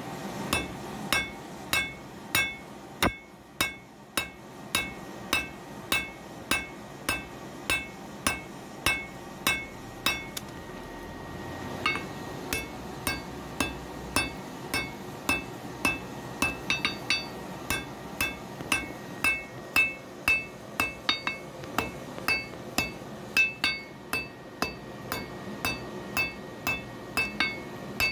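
Hand hammer striking red-hot iron on an anvil while forging a knife blade, with a bright metallic ring after each blow. The blows come steadily at about two a second and quicken with closely paired strikes around the middle.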